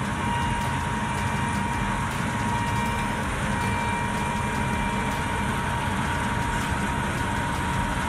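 New Holland TC56 combine harvester running steadily while harvesting wheat: an even diesel engine drone mixed with the noise of the threshing machinery, with a thin, steady whine on top.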